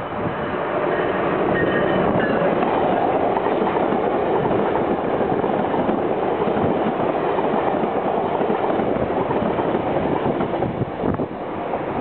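Amtrak AEM7AC electric locomotive and eight Amfleet I coaches passing at speed: a loud, steady rush of wheels on rail that builds over the first second or two, holds while the coaches go by, and eases off near the end.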